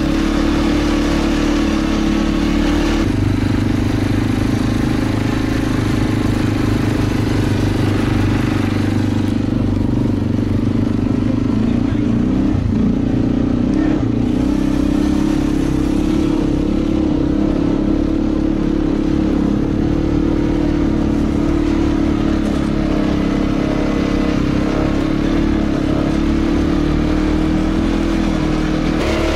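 ATV (quad bike) engine running steadily while the quad drives along a snowy track, heard close up from on board; the engine note changes about three seconds in.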